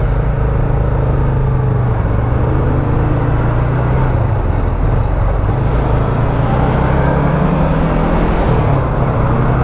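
Yamaha MT-03's 321 cc parallel-twin engine running at low speed as the motorcycle moves off through city traffic, its note shifting slightly a couple of times.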